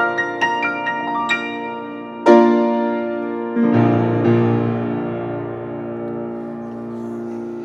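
Shigeru Kawai grand piano played solo: a few quick single notes, then a loud full chord about two seconds in and a deep bass chord just after. The chords are left to ring and fade slowly to the end, with no new notes.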